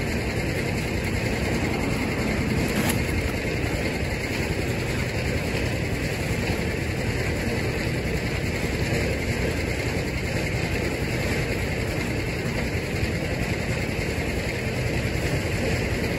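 An engine idling steadily, a constant rumble with no change.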